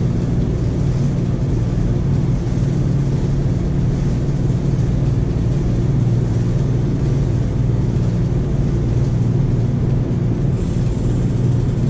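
Bicycle rear wheel and drivetrain spinning under steady pedalling: a steady low hum with a faint tick about every half second. Near the end quicker ticking sets in as the wheel coasts on the freewheel.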